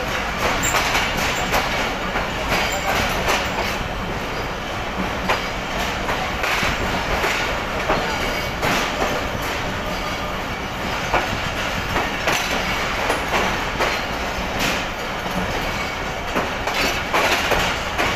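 Passenger train coach wheels clattering over rail joints and points as the train pulls into the station, with irregular clicks and knocks over a steady rumble, heard from the coach's open door.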